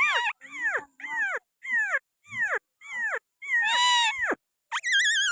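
Pakistani green parrot calling: a run of short calls, about two a second, each arching up and then dropping in pitch, then a longer drawn-out call and a quick wavering, warbled call near the end.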